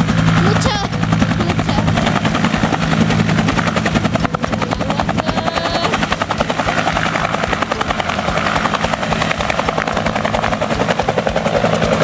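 Helicopter running: a steady low drone under the rapid, even chop of its rotor blades.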